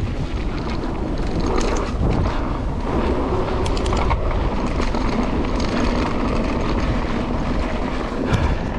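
Mountain bike riding fast down a sandy dirt trail: steady wind buffeting the microphone and tyres rolling on the sand, with a few sharp clatters from the bike over bumps, the loudest near the end.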